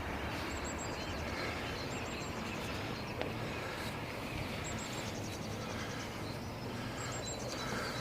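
Small birds chirping in short runs of high notes, several times over, above a steady outdoor background rumble.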